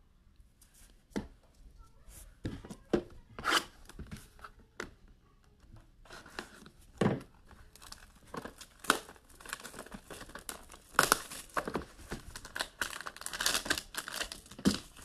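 Light rustles and clicks of handling. Then, from about six seconds in, plastic wrapping on a sealed trading card box being torn and crinkled open.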